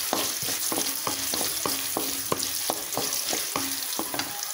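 Hot oil sizzling in a kadai while a spatula stirs a tempering of chillies and curry leaves, knocking and scraping the pan about three times a second; the stirring stops near the end.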